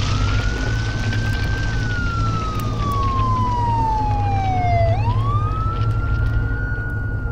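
Emergency vehicle siren wailing: its pitch rises, holds, falls slowly over several seconds, then rises again about five seconds in, over a steady low rumble.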